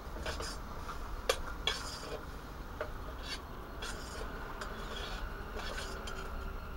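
A utensil scraping and clicking irregularly against a metal pot as diced bacon is stirred while it fries, with a couple of sharper knocks about a second and a half in, over a steady hiss.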